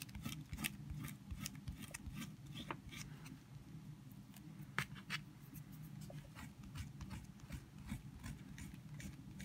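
Faint, irregular scratchy ticks of a gum rubber pad and fingertips rubbing dried latex frisket (masking fluid) off watercolor paper, over a steady low hum.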